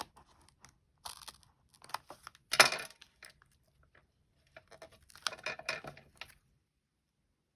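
Scissors snipping through ribbon on a journal card, with rustling and clicks in three short bursts, the loudest near the middle.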